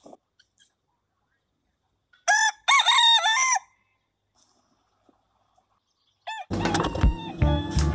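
A rooster crowing once about two seconds in, a loud call of about a second and a half that rises and falls in pitch. Near the end a short call sounds and music starts.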